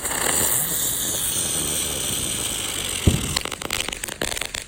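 A ground firework going off with a loud, steady hiss of sparks, a low thump about three seconds in, then a fast run of sharp crackles before it cuts out near the end.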